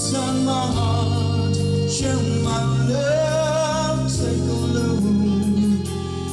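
Music: the song's backing track with sustained chords, and a singing voice holding long, wavering notes.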